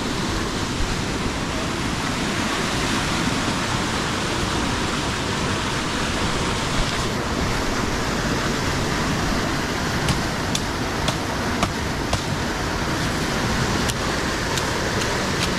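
Steady rush of river rapids running close by. In the second half, a run of light, sharp knocks from a blade chopping bamboo.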